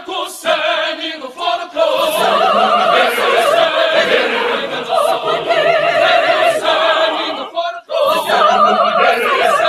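Mixed school choir singing in full voice, unaccompanied. The voices break off briefly about eight seconds in, then come back in.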